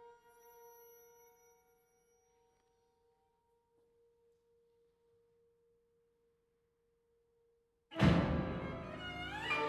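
Contemporary chamber ensemble: faint held high tones die away, several seconds of near silence follow, then about eight seconds in the ensemble enters suddenly and loudly with a dense chord and falling glides.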